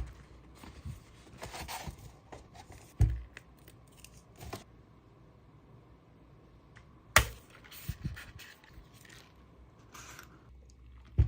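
Objects handled in a quiet small room: four sharp knocks spread several seconds apart, with light scraping and clicking between them.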